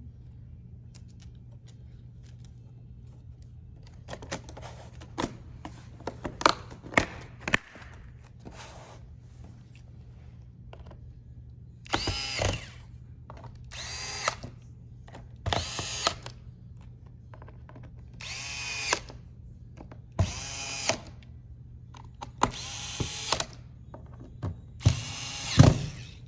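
Plastic clicks as a laptop's cover is pressed back into place, then a small electric screwdriver runs in seven short bursts, driving the cover's screws back in.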